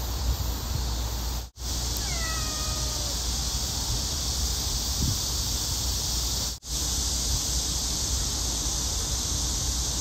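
A cat meows once about two seconds in, a single call of about a second that falls in pitch, over a steady hiss that cuts out briefly twice.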